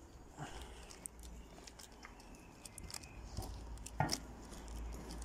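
Faint handling noise from carrying two bubble tea cups in clear plastic bags: scattered light clicks and crackles of plastic, with a sharper click about four seconds in, over a low rumble.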